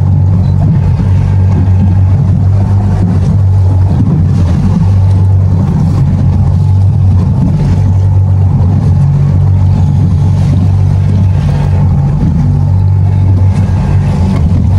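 Boat motor running steadily under way, a constant low drone.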